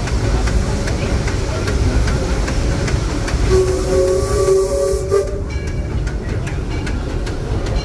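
Steam locomotive Ernest S. Marsh's whistle sounds one blast of nearly two seconds about midway, with a hiss of steam that cuts off when the blast ends. Under it runs the steady rumble of the train rolling along the rails.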